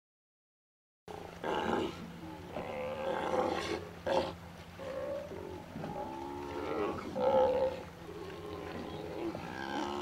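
Steller sea lions calling at a haul-out: several animals' deep, rough calls overlapping, starting suddenly about a second in after silence, over a steady low hum.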